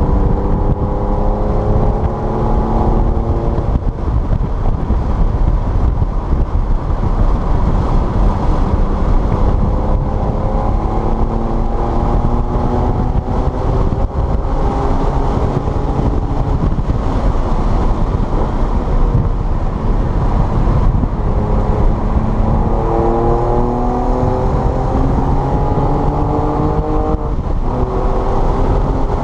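Car engine heard from onboard during a lap, pulling hard with its pitch climbing and dropping back at each gear change several times, over steady road and wind noise.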